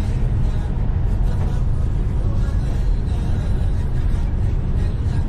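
Steady low rumble of a car driving, heard from inside the cabin, with tyre noise from the wet road.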